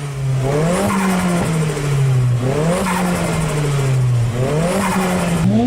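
Turbocharged car engine revved in three short blips about two seconds apart, each lift-off followed by the fluttering chatter of turbo flutter (compressor surge).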